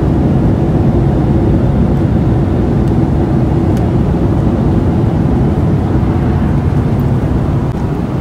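Steady drone of a jet airliner in flight, engine and airflow noise heard inside the cabin at a window seat, with a faint steady hum running through it.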